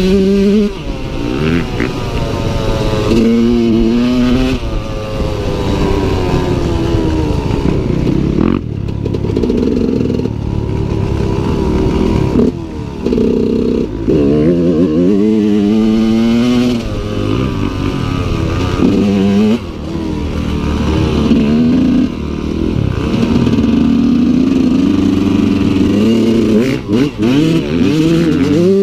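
Husqvarna dirt bike engine revving hard while being ridden, its pitch climbing again and again through the gears with brief throttle chops in between.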